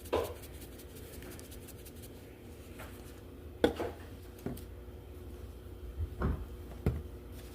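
A few light knocks and clicks of kitchen containers being handled, scattered over several seconds against a steady low hum.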